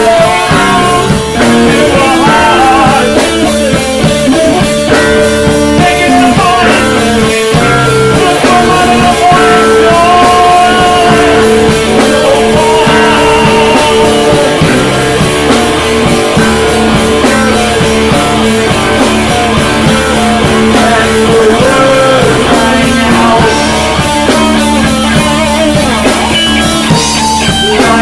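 A rock band playing a song with guitar and drum kit over a long held note.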